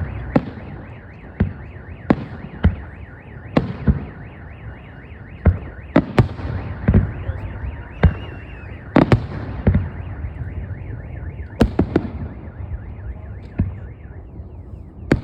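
Aerial fireworks shells bursting in a display: a dozen or so sharp bangs at uneven intervals over a continuous low rumble of distant explosions, with a rapid repeating high-pitched warble behind them.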